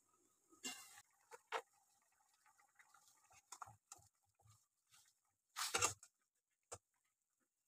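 A metal pot lid lifted off with a clatter, then a flat metal spatula knocking and scraping against a metal pot as boiled chicken is lifted out of its cooking water, with a louder clatter near the end.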